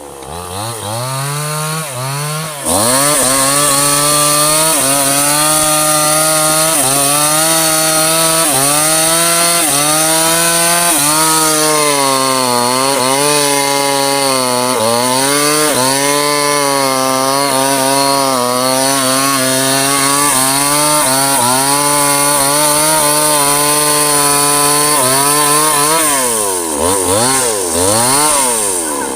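Two-stroke chainsaw cutting into a large teak trunk, the engine pitch sagging and recovering again and again under load as the chain rasps through the wood. Near the end it is revved up and down several times.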